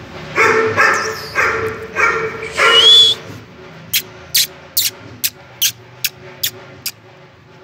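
Beagle puppy yapping: four short high barks in quick succession, the last rising into a squeal. They are followed by a run of about eight short, sharp high chirps roughly half a second apart.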